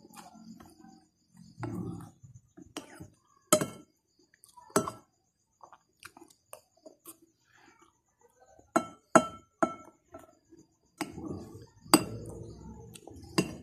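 Metal spoon clinking and scraping against a plate while eating rice: sharp separate clinks, with three in quick succession about nine seconds in and a loud one near the end.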